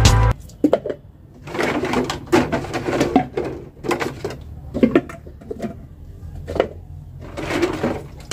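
Plastic jars and containers being washed by hand in a plastic tub of water: irregular knocks and clatter of plastic against plastic, with water sloshing and splashing.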